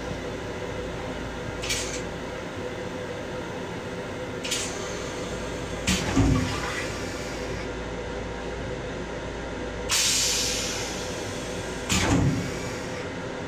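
M7 railcar toilet with a stainless-steel bowl flushing: a series of short hisses of water and air, one near the two-thirds mark fading over a second or two, and two dull clunks, over the steady hum of the railcar.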